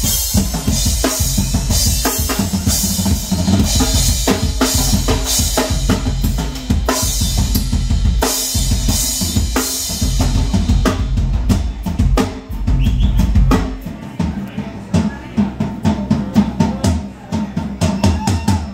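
Drum kit played live and loud: kick drum, snare and cymbals in a driving pattern. About ten seconds in the cymbal wash stops, and a few seconds later the heavy kick drum drops out, leaving lighter drum strikes.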